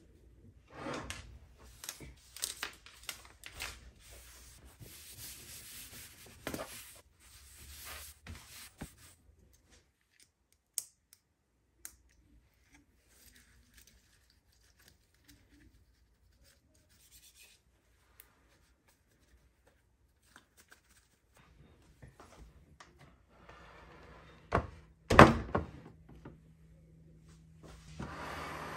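Paper towel rubbing and wiping across a hard desk surface, with small clicks and knocks as things are moved. This is followed by a quiet stretch with a few light ticks. Near the end come two sharp knocks, the loudest sounds, as a clear acrylic monitor stand is set in place under the computer.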